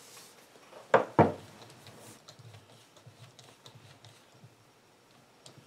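Two sharp knocks of tools and parts being handled on a workbench about a second in, then faint small ticks as a screwdriver tightens a hose clamp on an air hose over a barb fitting.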